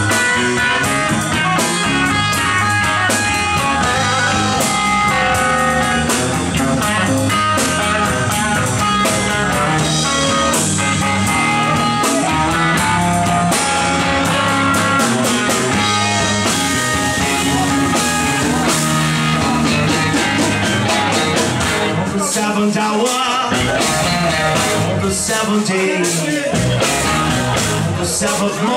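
Live blues-rock band playing an instrumental break: electric guitar lead with bent notes over electric bass and drum kit. In the last part the bass and drums drop out briefly a few times, leaving the guitar.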